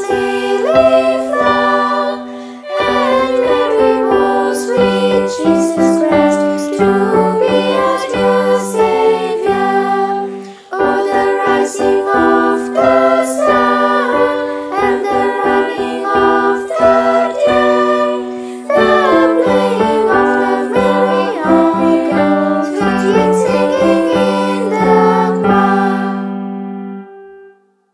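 Girls' choir singing a Christmas carol with instrumental accompaniment, in phrases with short breaks, closing on a long held note that fades out near the end.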